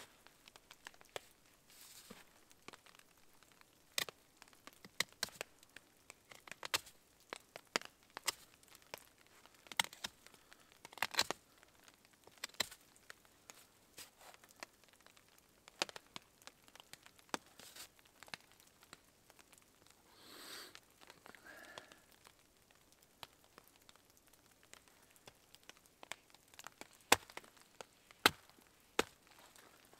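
A knife carving a long wooden stick: irregular sharp cuts and scrapes of the blade biting into the wood, roughly one every second, some louder than others. A brief soft rustle comes about two-thirds of the way through.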